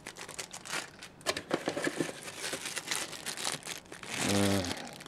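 Clear plastic accessory bags crinkling irregularly as they are handled and unwrapped. Near the end a man gives a short low hum.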